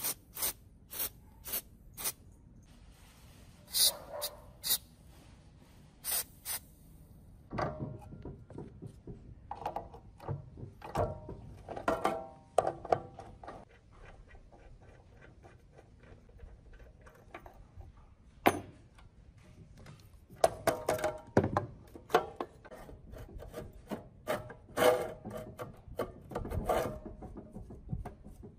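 Short hisses of an aerosol lubricant sprayed onto the rusted arbor of a Makita M2400B cut-off saw. Then irregular rubbing, scraping and knocking of rusty metal parts as the old abrasive cutting disc is worked loose and taken off.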